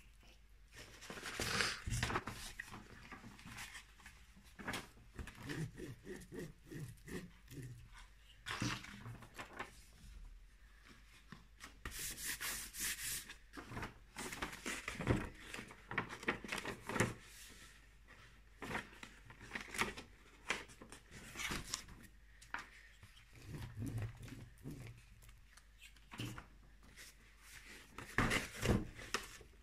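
A cardboard box with a sheet of paper being glued to its front is handled and moved about: irregular rustles, scrapes and light knocks of paper and card, with a longer rustle about twelve seconds in.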